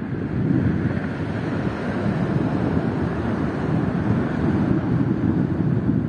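Wind buffeting the microphone, over a steady wash of ocean surf.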